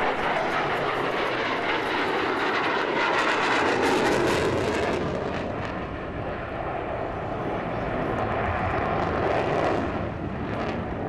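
F-16 fighter jet flying past in a banked turn, its jet engine a loud rushing noise that is loudest about four seconds in and eases a little after.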